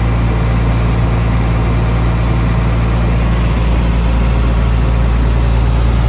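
Large engine idling steadily, a deep, even hum that does not change.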